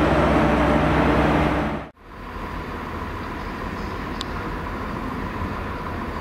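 Diesel engine of a Class 43 HST power car running as it pulls away, with a steady low hum. It cuts off abruptly about two seconds in, giving way to quieter distant rail-yard rumble with a faint steady tone.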